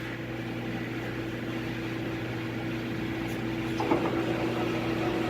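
Steady hum of a machine tool with its hydraulic pumps running, with a faint short knock about four seconds in.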